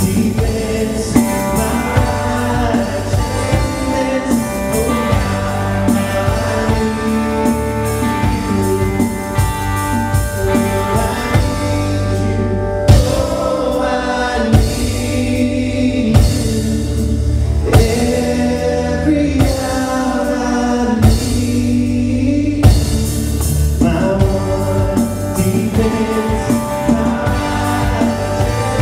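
Live worship band playing a song: strummed acoustic guitars, electric guitar, bass and drum kit, with a man singing the melody.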